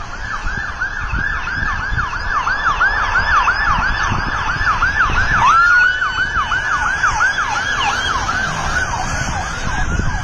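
Siren in a rapid yelp, its pitch sweeping about three to four times a second, with a brief rising, held wail about five and a half seconds in. Wind buffets the microphone underneath.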